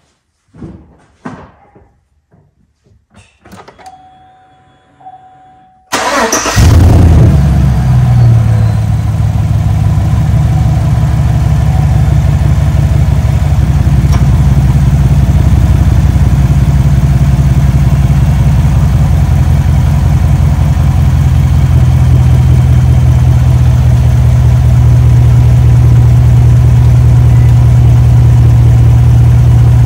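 A few faint clicks, then about six seconds in the 2015 Chevrolet Silverado's 5.3-litre V8 cranks and catches, flares up briefly and settles into a steady idle. This is the first start after an oil change, with fresh 0W-20 in the engine.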